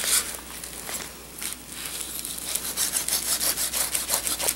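A kitchen knife sawing back and forth through a raw rack of pork baby back ribs between the bones. It makes a quick run of short strokes over the second half.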